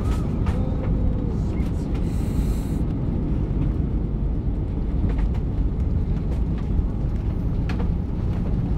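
Steady low rumble inside a jet airliner's cabin as it rolls along the runway, with a brief hiss about two seconds in.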